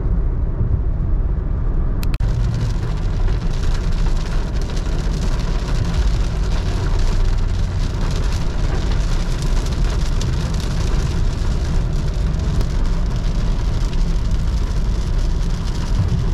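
Heavy rain hitting the roof and windscreen of a moving car, heard inside the cabin, starting suddenly about two seconds in and keeping up as a dense hiss over the steady low road and engine rumble of the Honda City.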